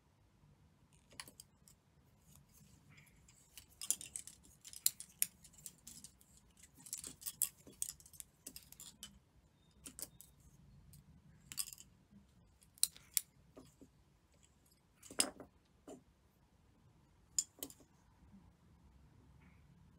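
Irregular small clicks and rustles of hands working tatting: plastic tatting shuttles tapping and the thread being handled and drawn through. A busy run of taps comes in the middle, then scattered single clicks, one louder than the rest.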